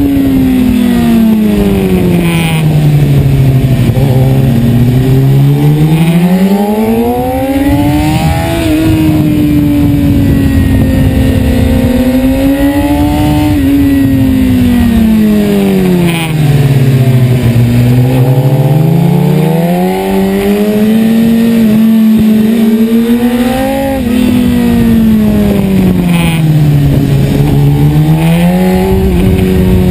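BMW S1000RR inline-four engine heard from on board at speed. Its pitch climbs as the bike accelerates and drops as it slows for corners, about five times over, with small steps in pitch where the gears change.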